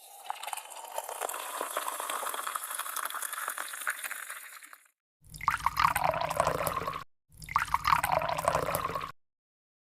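Liquid being poured twice, each pour about two seconds long with a pitch that slides downward, after several seconds of crackly, clicking liquid noise.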